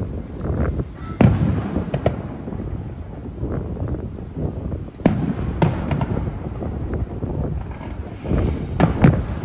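Aerial firework shells bursting at a distance, with sharp bangs about a second in, near two seconds, twice around five seconds, and twice near the end. A continuous low rumble runs between them.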